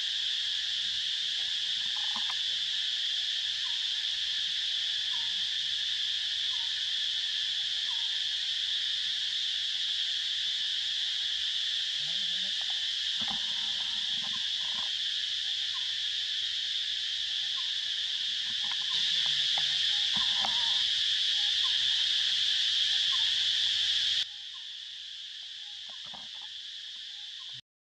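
Steady high-pitched drone of an insect chorus. It grows louder about two-thirds of the way through, then drops suddenly near the end and cuts out for a moment.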